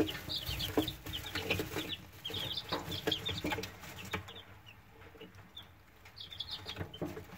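A brood of week-old chicks peeping: many short, high cheeps overlapping, thinning out to a few scattered peeps after about four seconds.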